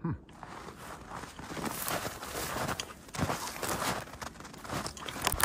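Footsteps crunching through snow while pushing through brush, an irregular run of crunches and rustles, loudest near the end.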